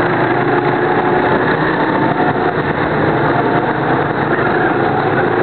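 Small go-kart engines running steadily at a constant pitch while the kart laps the track, heard from the kart itself.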